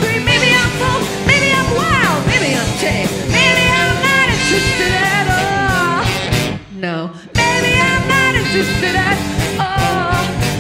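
Live rock band playing, with drums and bass under bending lead lines. The band stops dead for under a second about six and a half seconds in, then comes back in.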